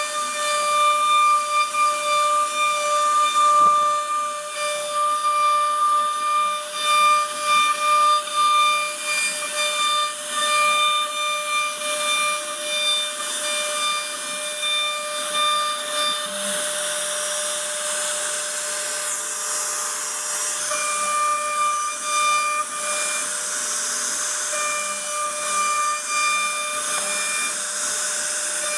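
CNC router spindle running with a steady high whine while its bit carves a 2.5D design into wood, over a hiss of cutting. Part of the whine drops out a little past halfway and then comes and goes.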